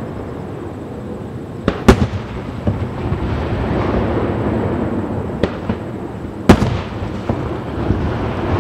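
Aerial firework shells bursting: two loud booms about two seconds in and again past six seconds, with smaller bangs in between, over a steady background noise.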